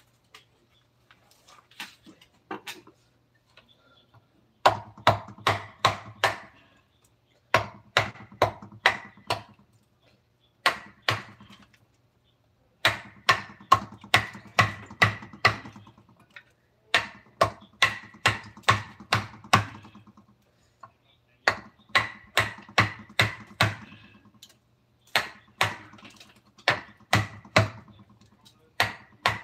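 Mallet striking a wood-carving chisel, about four blows a second, in bursts of a few seconds separated by short pauses.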